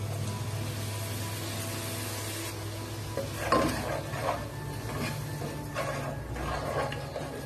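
Water poured into hot oil with fried onions and garlic in a nonstick pot, sizzling. From about three seconds in, a spatula stirs and scrapes the mixture in repeated strokes.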